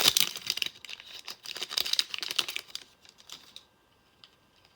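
Trading cards and plastic or foil packaging being handled: a quick run of crinkling and small clicks that dies away about three seconds in.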